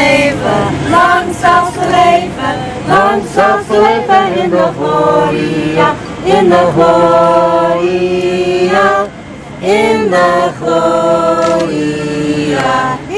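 A group of people singing the Dutch version of a birthday song together, with long held notes about halfway through and again near the end.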